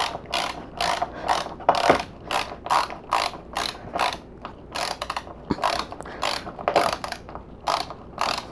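Ratcheting hand screwdriver driving a Phillips screw into a particleboard panel: a short burst of ratchet clicks with each turn of the handle, repeating evenly about two to three times a second.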